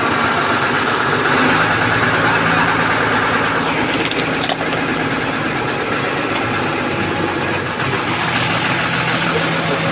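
Heavy vehicle's engine running steadily close to the microphone, with a few sharp clicks about four seconds in.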